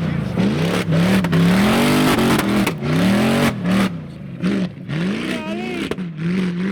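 Off-road 4x4 engine revving hard on and off throttle, its pitch rising and falling again and again.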